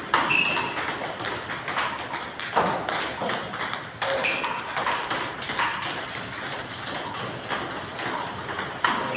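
Table tennis balls clicking in quick, irregular succession: paddles striking and balls bouncing on the table, one ball after another as they are fed in a multiball drill.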